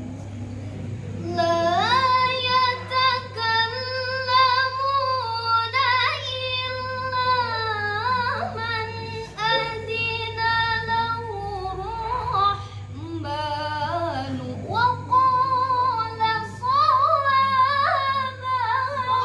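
A young woman reciting the Quran solo in the melodic tilawah style, with long held, ornamented notes, pitch glides and short breaths between phrases; it begins about a second in. A low steady hum runs underneath.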